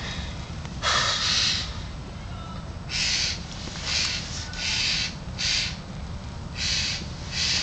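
Scrub jay giving a series of harsh, rasping calls, about seven in irregular succession, the first, about a second in, longer and louder than the rest.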